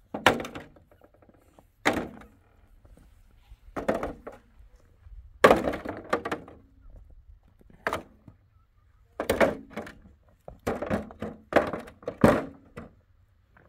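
A series of about nine heavy thuds, irregularly spaced roughly one every second or two, some followed by a short rattling tail.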